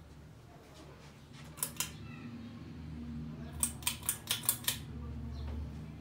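Westinghouse Petite 30-inch ceiling fan running with a low steady hum. Sharp clicks come twice about a second and a half in, then about six in quick succession around four seconds in.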